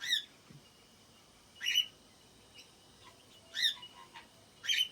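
A bird calling: four short, high-pitched chirps, one every second or two.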